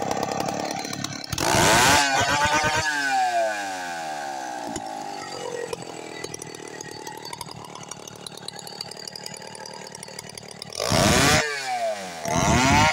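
Stihl two-stroke chainsaw running. It is revved hard for about half a second about a second and a half in, then winds down and idles for several seconds. It is revved hard again near the end, followed by quick throttle blips.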